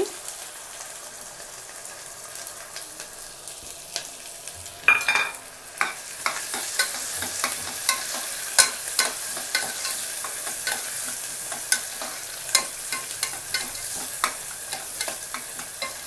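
Chopped onions and green chillies sizzling in hot oil in an aluminium pressure cooker while being stirred. A utensil scrapes and clicks against the metal pot, with a louder clatter about five seconds in and frequent clicks after that.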